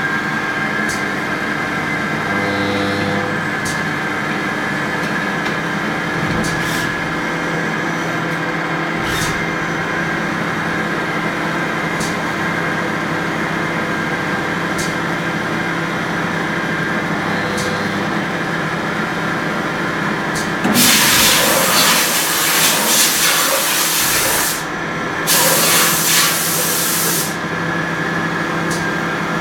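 Hyundai-Kia SKT-21 CNC turning centre running as it cuts hardened 60 HRC material, giving a steady machine hum with several steady tones and a few faint ticks. About two-thirds of the way through come two loud hissing bursts, the first about four seconds long and the second about two.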